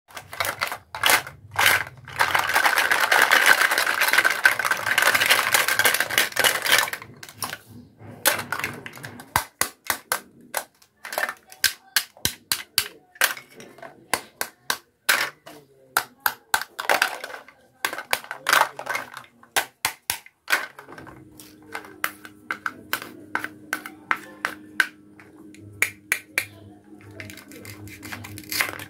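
Plastic toy kitchen pieces being handled, set down and tapped together: a long run of sharp clicks and knocks, with a few seconds of dense rustling near the start. A steady low hum comes in about two-thirds of the way through.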